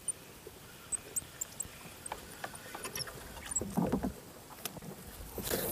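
Handling sounds from a small wooden fishing boat on the water: scattered light clicks and knocks. There is a dull thump about four seconds in and a short rushing, splashy noise near the end.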